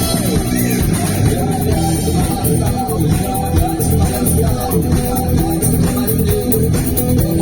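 Rock band playing live, with guitars and bass guitar over a steady beat.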